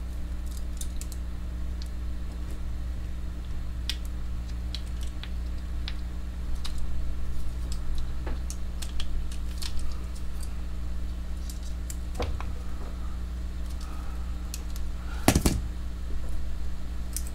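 Scattered light clicks and taps of a steel multitool's screwdriver working at the plastic handle scale of a SOG Altair FX knife, prying the scale off, with a sharper burst of clicks near the end. A low steady hum runs underneath.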